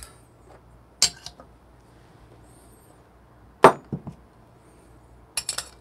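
Metal knocks and clinks of a stainless portafilter and espresso tools being handled: a few light clicks, one sharp knock about three and a half seconds in as the portafilter is set down in its stand, then a quick run of clinks near the end.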